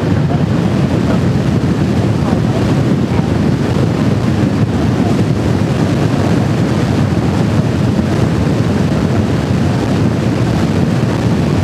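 Steady wind rushing over the microphone of a motorcycle riding at speed, with road and engine noise beneath it.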